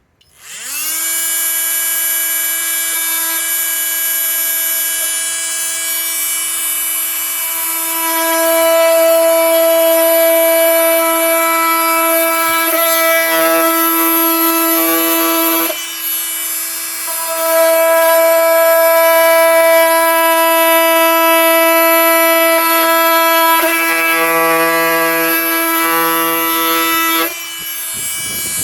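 Flex FX4111 cordless oscillating multi-tool running at a steady high buzz as its blade cuts through wood and lag bolts. It grows louder under load, letting up briefly about halfway through and again near the end.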